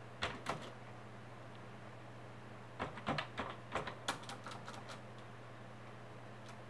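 Computer keyboard keystrokes: two taps, then a quick run of about a dozen taps from about three to four and a half seconds in, as a name is typed into a form. A low steady hum runs underneath.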